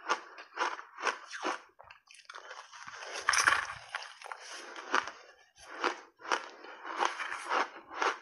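Ice chunks coated in matcha and milk powder being bitten and chewed, close to the microphone. Separate crisp crunches come about two a second at first, then a longer dense crunching in the middle, then more single crunches.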